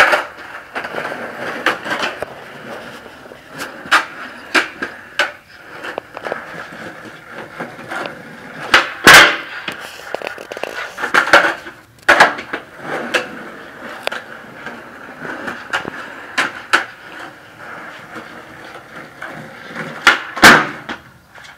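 Skateboard on rough concrete: wheels rolling under a steady hiss, with repeated tail pops and clacks of the deck as flip tricks are tried and landed. A few louder cracks stand out, about nine, eleven and twenty seconds in.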